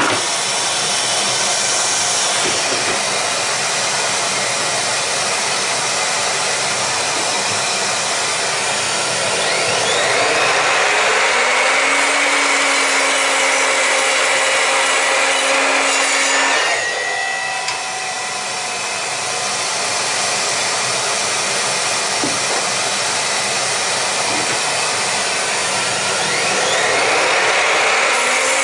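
Evolution R255 SMS sliding mitre saw: its motor spins up with a rising whine about a third of the way in, runs through a cut in a wooden block for about six seconds, then winds down. It spins up again near the end. A steady whooshing hiss from the dust extractor on the saw's hose runs under it all.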